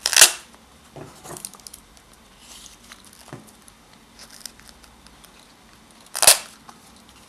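Velcro closure on a leather knife pouch being pulled apart with a short tearing rip, twice, about six seconds apart. Soft rustles of the pouch being handled come between the rips.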